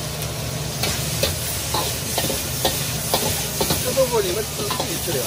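Stir-frying in a wok: food sizzling with a steady hiss while a long metal ladle scrapes and knocks against the wok many times.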